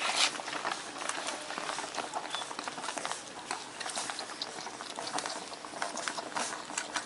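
Newborn Shar-Pei puppies suckling at their mother: a continuous run of small wet smacking and clicking sounds, with one brief high squeak about two seconds in.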